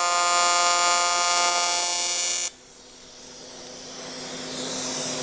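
AC TIG welding arc on aluminium, set to 175 Hz AC frequency on a Longevity Tigweld 200EX, giving a steady high-pitched buzz. The arc stops abruptly about halfway through. After that there is a hiss that grows louder, the argon post-flow from the torch.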